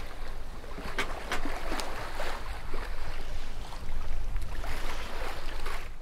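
Ocean waves on open water: a steady wash of moving water with scattered small splashes and slaps of wave crests over a low rumble.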